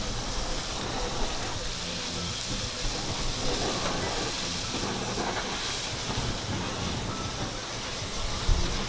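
Cubed beef steak sizzling on a hot flat-top griddle while a handheld butane blowtorch hisses over it, searing the meat; a low rumble swells near the end as the flames flare up.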